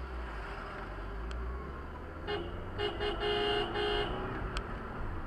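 Car horn honked in a quick string of four or so short toots about two seconds in, fairly faint over the car's steady low engine and road rumble.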